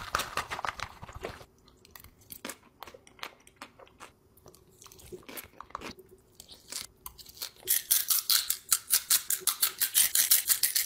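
A person chewing a crunchy, sauce-covered Flamin' Hot Cheetos mac 'n cheese close to the microphone. Crackles from a spoon working the cup come first, then scattered clicks, and near the end a fast, even run of crunches, about six a second.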